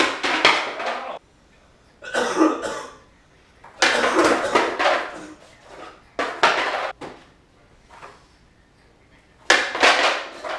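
Skateboard clattering onto a concrete floor during flip-trick attempts: about five sharp smacks of the board and wheels hitting the floor, each followed by a short rattle and roll of the wheels.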